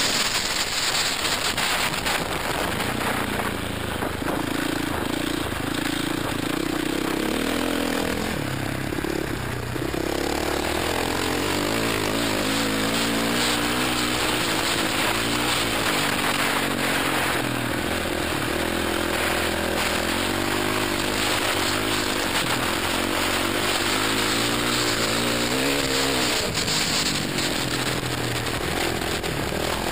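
Single-cylinder dirt bike engine at racing speed, its pitch climbing and dropping every few seconds with throttle and gear changes. Heavy wind rush on a helmet-mounted microphone runs under it.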